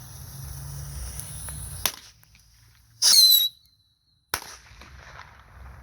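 Small firecrackers going off: a sharp crack, then a much louder bang about three seconds in with a brief high falling squeal, and another sharp crack a second later.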